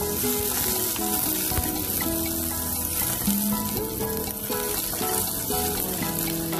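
Garlic, ginger and onion sizzling steadily in hot olive oil in a pot, stirred with a wooden spoon. Background music with a simple melody plays over it.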